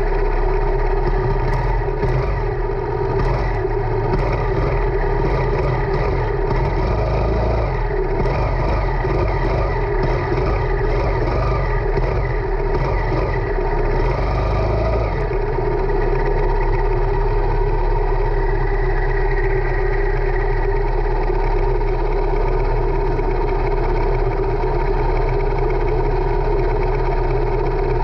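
Go-kart engine idling steadily while the kart stands still, with scattered light clatter during roughly the first half.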